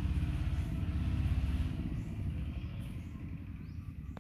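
Low rumble of a passing motor vehicle's engine, growing louder over the first second and a half, then fading.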